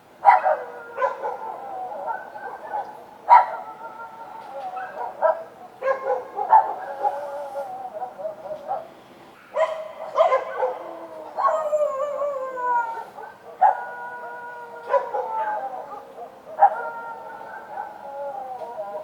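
Street dogs barking and howling: sharp barks every second or two, each trailing into a drawn-out howl, several of them falling in pitch.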